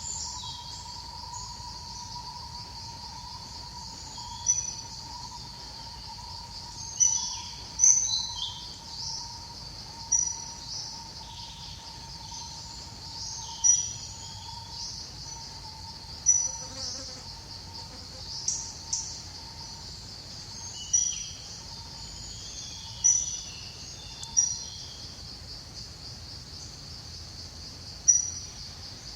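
Steady, high, pulsing drone of insects such as crickets or cicadas, with a fainter steady insect tone underneath. About a dozen short, high chirps cut across it every one to three seconds.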